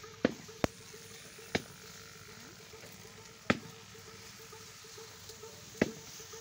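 Dry Napier grass leaves and stalks crackling as they are pushed through or stepped on: five sharp snaps at uneven intervals, over a faint steady hum.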